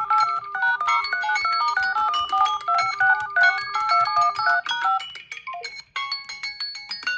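Samsung Galaxy phone ringtone playing, a fast melodic run of short electronic notes over a low held tone. About five seconds in it breaks off, and a second, sparser tone pattern starts about a second later.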